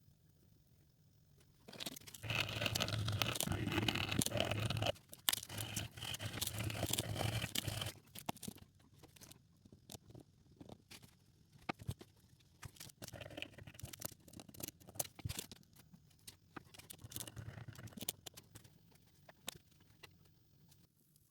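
Scrubbing and scraping on a small hard object, in two loud stretches of about three seconds each, then scattered light scratches and clicks.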